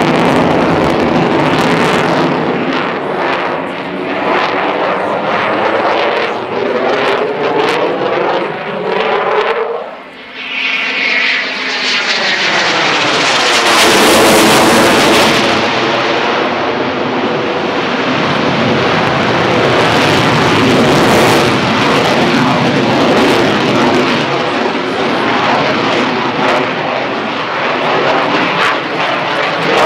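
Eurofighter Typhoon's twin EJ200 turbofan engines at display power, the loud jet noise sweeping in pitch as the aircraft passes and turns. It drops briefly about ten seconds in, then peaks around fourteen seconds in before settling to a steady loud noise.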